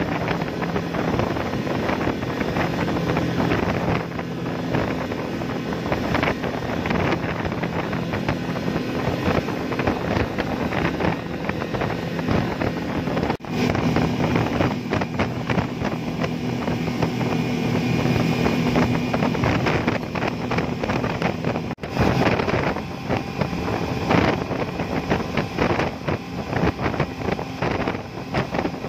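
Twin Yamaha 200 hp four-stroke outboard motors running at speed, a steady engine drone under the rush of spray and wind on the microphone. The sound drops out for a moment twice, about halfway and again about three quarters of the way through.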